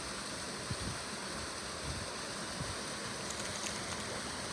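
Steady outdoor noise, like wind or water, with a few faint low thumps.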